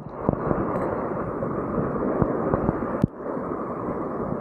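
Sea surf washing and foaming over shore rocks: a steady rush of water, with a brief dropout about three seconds in.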